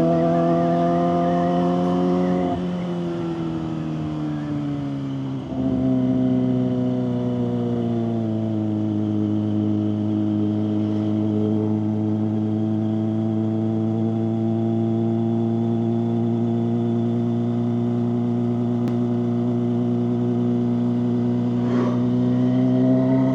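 Kawasaki ZX-25RR's 250 cc inline-four through a Leovince GP Corsa exhaust, ridden on the road. The engine note climbs slightly, drops as the throttle closes, and jumps back up with a sudden step about five seconds in. It then eases down to a long steady cruising note and rises again near the end.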